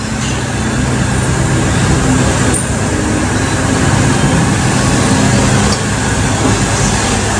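Steady low machine hum over a broad noisy wash, from workshop machinery running.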